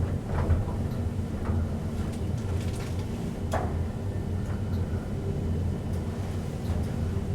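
Schindler passenger lift car in motion: a steady low hum with a few faint clicks.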